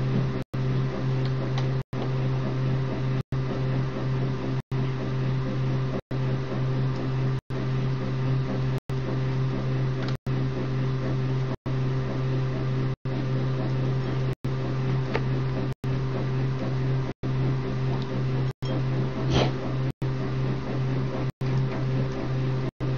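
A steady low hum with a few fainter steady tones above it, broken by brief dropouts about every second and a half. A single faint click comes about three-quarters of the way through.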